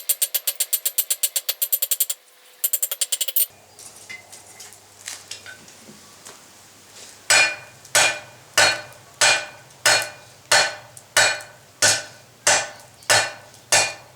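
Blacksmith's hammer on the anvil, drawing the end of a 12 mm rebar bar to a taper. It opens with a fast run of light, ringing taps, then a quieter stretch with a low hum and a few small clinks. From about seven seconds in come steady heavy blows with a metallic ring, about one and a half a second.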